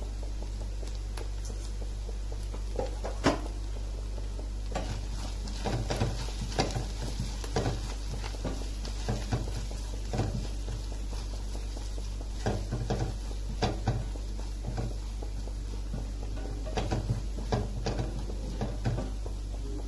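Silicone spatula stirring and scraping onions and spice powders around a stainless steel pan, with irregular knocks and scrapes starting a few seconds in, while the oil sizzles. A steady low hum runs underneath.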